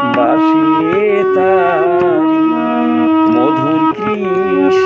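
Harmonium played with sustained reed notes while a man sings a Bengali folk song, drawing out long, wavering held notes between the lines of lyrics.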